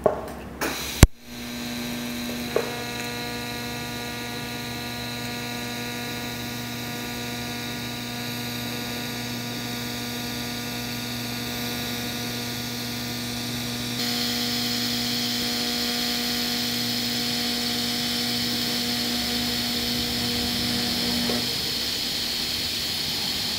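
TIG welding arc at about 120 amps on an exhaust flange: a sharp crack as the arc strikes about a second in, then a steady electrical hum with a hiss that grows louder partway through, cutting off near the end.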